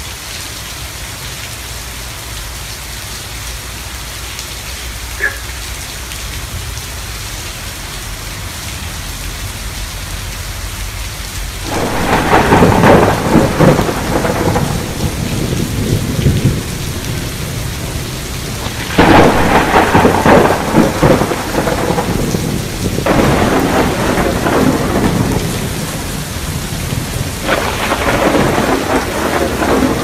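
Steady rain, then thunder in several loud crackling rolls, the first breaking suddenly about twelve seconds in.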